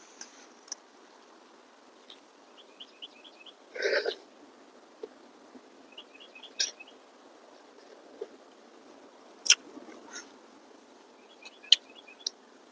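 Close-up eating sounds: sharp lip smacks and wet mouth clicks as noodles wrapped in fresh herb leaves are eaten by hand, with one louder, noisy mouthful about four seconds in. A bird chirps in the background in quick runs of four or five short high notes, three times.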